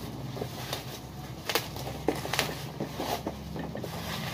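Bubble wrap and plastic packaging crinkling and rustling by hand as a box is pulled out of it, with irregular sharp crackles.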